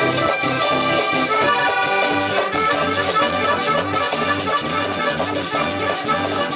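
Live vallenato band playing, with a diatonic button accordion carrying the melody over electric bass and percussion that keep a steady beat.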